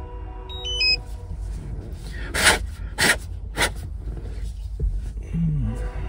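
A man's breathing: three short, sharp breaths about half a second apart near the middle and a short low grunt near the end, over a steady low rumble. A short run of high electronic beeps sounds a little under a second in.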